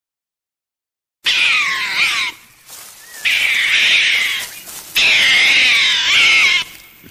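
An animal calling: after about a second of silence, a series of loud, high, wavering calls, four in a row with short gaps between them.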